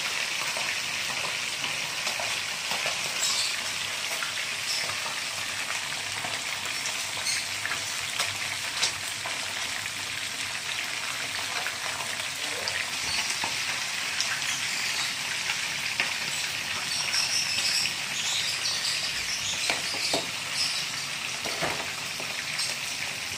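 Whole small salay-salay fish frying in a pan of hot oil: a steady sizzle with scattered crackles and pops, mixed with a lidded pot of vegetables at a rolling boil.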